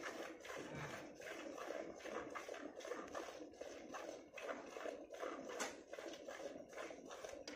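Cow being milked by hand: milk squirting in a steady rhythm of short hissing jets, a few a second, into a steel pot.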